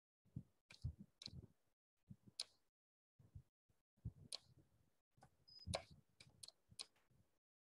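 Faint, irregular clicks and taps, about a dozen, with dead silence between them where the call audio cuts out.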